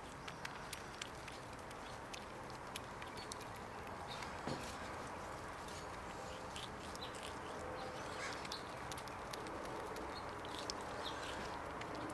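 Pet squirrel gnawing kernels off an ear of white corn: small irregular crunching clicks.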